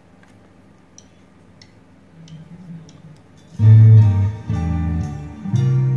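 A band's recorded rock song playing back. It opens quietly with a few soft ticks and faint notes, then about three and a half seconds in guitars and bass come in loud with held low chords.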